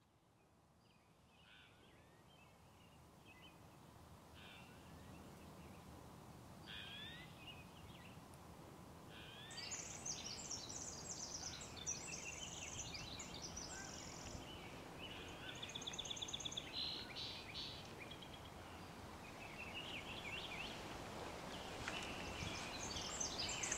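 Songbirds chirping and trilling over a steady rush of background noise, fading in from silence and growing louder; the birdsong becomes much busier about ten seconds in.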